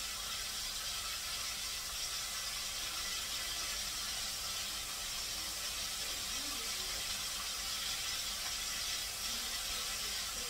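Breaded whiting fillets frying in hot oil in a deep fryer: a steady sizzling hiss.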